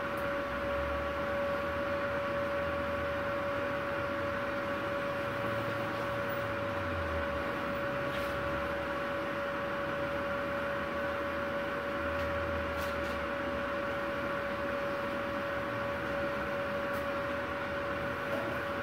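Multipro MIG-MAG 200G SP inverter welding machine switched on and idling, not welding: a steady hum with fan noise and a constant mid-pitched whine.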